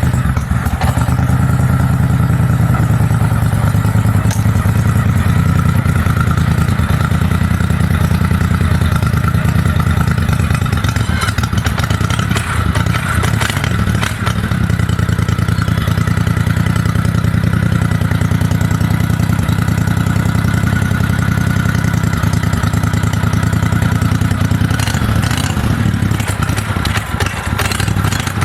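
V-twin engine of a home-built mini bike running steadily, with a brief unsteady stretch a little before the middle.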